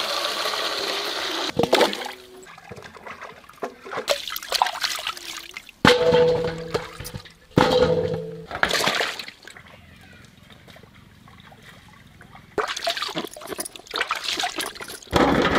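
Water poured from a steel pot into a large cooking vessel. A steady pour stops about a second and a half in, and several shorter splashing pours follow, with pauses between them.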